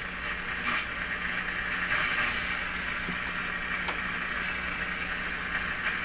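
Shortwave static from a Telefunken Salzburg 5094W console radio's speaker as it is tuned between stations: a hissing rush that swells and fades, broken by a few sharp clicks of outside interference that the owner says is not the radio itself, over a steady low hum.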